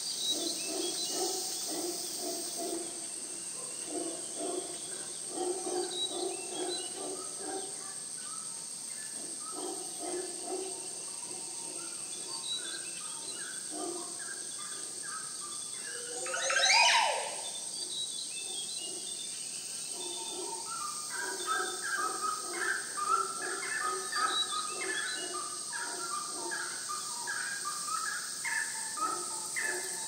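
Rainforest ambience: birds calling in short, repeated phrases over a steady high-pitched whine. About sixteen seconds in comes one loud rising sweep, and from about twenty seconds in the calls turn higher and busier.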